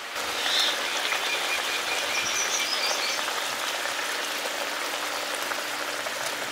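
Curry gravy simmering in a kadai, a steady bubbling crackle.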